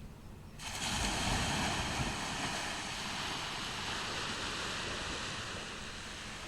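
Ocean surf on a beach: a wave breaks and rushes in, starting suddenly about half a second in and slowly fading as it washes up the shore.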